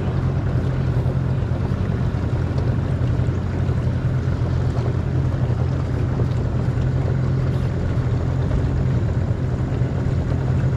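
Motorboat engine running at a steady speed, an unbroken low drone.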